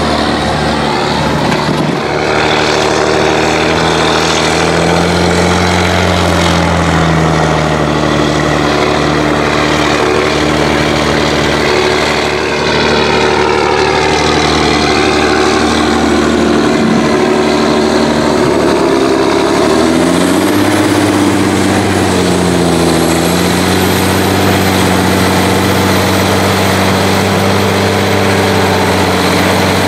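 John Deere 7920 tractor's six-cylinder diesel running hard through an open exhaust pipe while pulling a laser land leveler loaded with soil. The engine note rises and falls a few times as the load changes.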